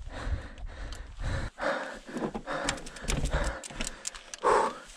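Heavy panting breaths of a man pushing a loaded e-bike up a steep rock gully, with sharp clicks and knocks of the bike on rock between breaths. A louder breath comes near the end.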